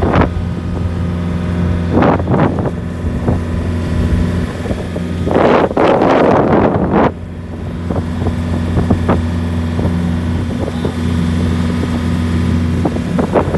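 Motorboat engine running with a steady low hum, with brief rushing bursts of wind on the microphone, the longest from about five and a half to seven seconds in.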